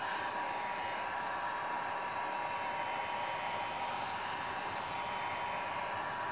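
Electric heat gun running steadily, blowing hot air onto a shell cup to soften it for shaping: an even rush of air with a thin steady whine.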